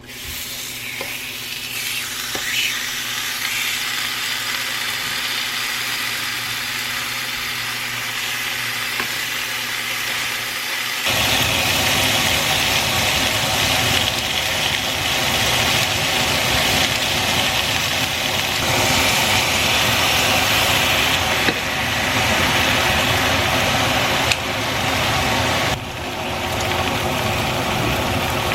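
A small electric motor running steadily, getting louder and fuller about eleven seconds in.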